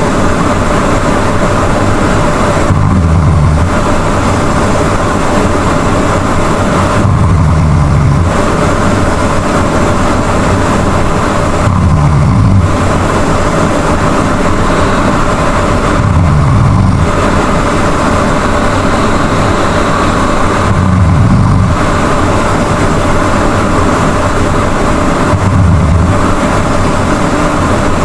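A sleeping person snoring loudly: a low snore repeating about every four and a half seconds, six in all, over a steady background noise.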